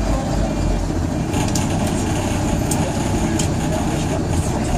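Diesel bus engine running, a steady low rumble heard inside the bus cabin, with a few light clicks and rattles.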